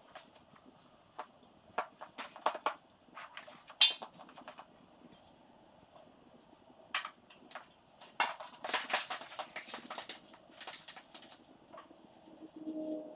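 Scattered sharp metal clinks and knocks from hand work on a tractor's steel rollover-protection frame, with a denser run of clatter about eight to ten seconds in.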